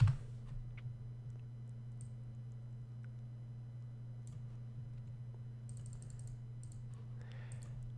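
Computer keyboard and mouse clicks, sparse and faint, over a steady low hum, with one loud sharp click at the very start and a small flurry of clicks about six seconds in.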